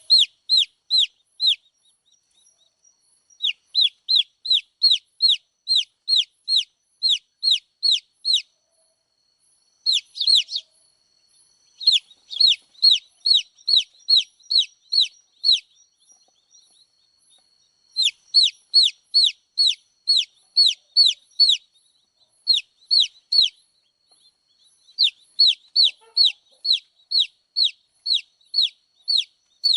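Baby chicks peeping: runs of rapid, high chirps, each falling in pitch, about three a second, broken by pauses of a second or two.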